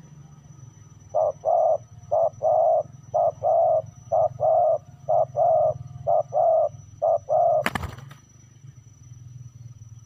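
Spotted dove cooing hard, seven two-note calls (a short note then a longer one) about once a second. The calls stop with a single sharp knock near the end.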